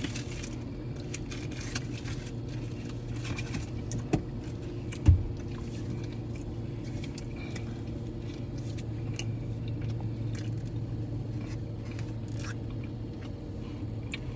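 Small clicks and crackles of crab legs and shells being handled, over a steady low hum from an air conditioner, with one louder thump about five seconds in.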